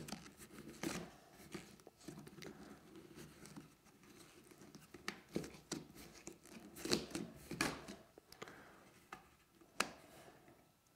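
Rubber surgical tubing being rolled and stretched down the sides of a glued-up walnut staved vase: faint rubbing with scattered light clicks and taps from hands working on the wood, a few sharper ones in the second half.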